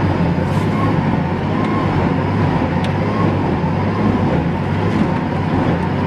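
Engine of a heavy wood-processing machine running steadily, a low even drone with a rushing noise over it.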